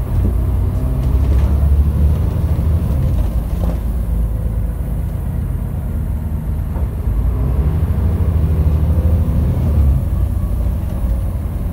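Volvo bus diesel engine heard from inside the passenger saloon, pulling away under load. Its note climbs, drops at a gear change about three and a half seconds in, then climbs again before another change near the end.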